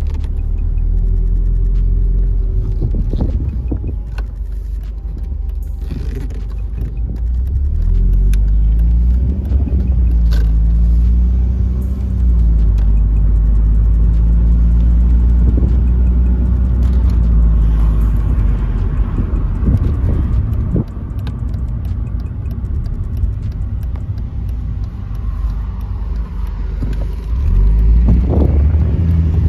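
Mercedes-Benz SLK 230's supercharged 2.3-litre four-cylinder engine heard from inside the cabin while driving, its pitch rising and falling with throttle and gear changes over a heavy low road rumble, getting louder again near the end.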